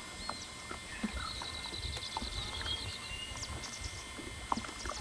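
Faint bird calls: a quick high trill followed by a run of fast chattering ticks, with scattered light knocks under a steady outdoor background.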